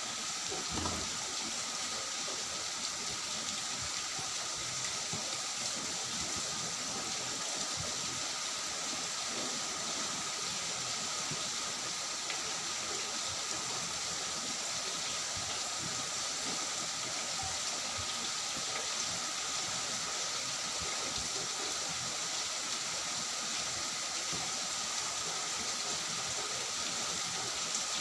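A steady, even hiss, with faint soft squishing and small ticks of cooked rice and curry being mashed and mixed by hand on a steel plate.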